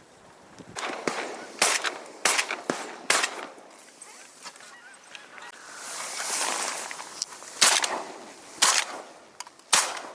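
Geese honking: a series of short, loud honks in clusters, with a softer rushing stretch in between.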